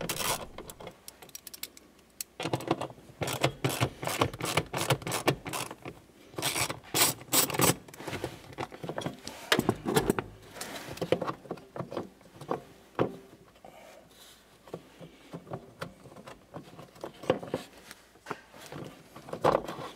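Quick runs of ratchet clicks with small metal scrapes and rattles as an 8mm ratchet undoes the two bolts holding a blower motor resistor.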